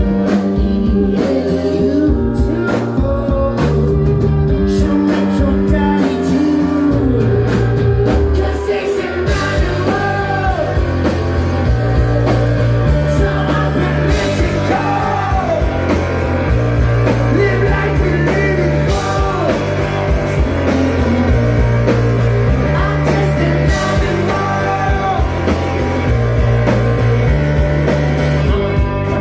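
A live rock band playing, with a repeating bass line, guitar and drums under a lead singer, heard from the crowd.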